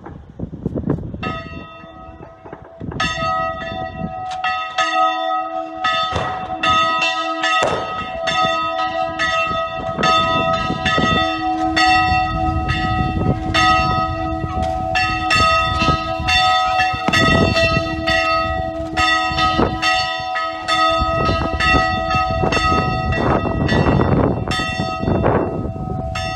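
Church bells ringing, starting about a second in. They are struck in a rapid, irregular run of strokes, and their tones hang on and overlap.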